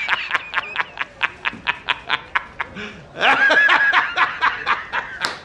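A man laughing uproariously in rapid, high-pitched ha-ha bursts, about five a second. The laugh breaks off briefly near the middle, then starts again louder.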